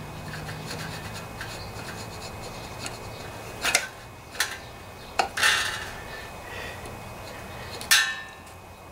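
Hand scraper scraping old gasket material off the crankcase sealing surface of a Briggs & Stratton single-cylinder OHV Intek engine, in several short strokes in the second half, the loudest near the end.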